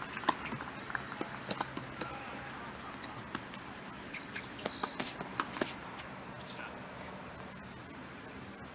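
Outdoor tennis-court ambience: scattered sharp ticks and taps, the loudest about a third of a second in, with a few short high bird chirps around the middle; it grows quieter in the last few seconds.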